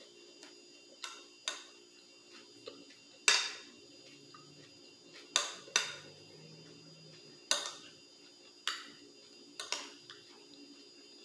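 Metal spoon clinking and scraping against a plate as food is scooped up: about nine sharp, unevenly spaced clinks, the loudest about three seconds in.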